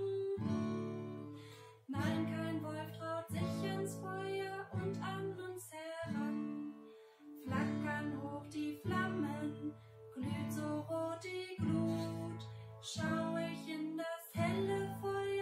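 A woman singing a slow song to her own strummed acoustic guitar, with chords struck in a steady rhythm.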